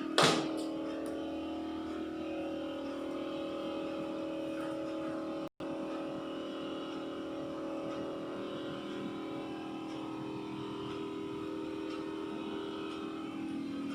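Steady machine-like hum made of several held tones, with a sharp knock right at the start. The hum cuts out for an instant about five and a half seconds in.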